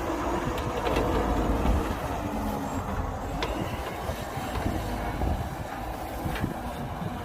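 Heavy diesel earthmoving machinery running with a steady low rumble, with a few sharp metallic clanks scattered through it.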